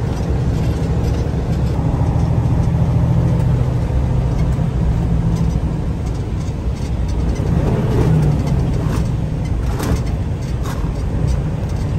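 Semi-truck's diesel engine running under way, heard from inside the cab as a steady low rumble mixed with road noise.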